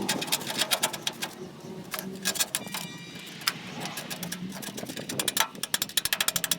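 Rapid, irregular scrubbing or scraping strokes on the rusty metal casing of an old microwave. Near the end the strokes quicken into an even run of about six a second.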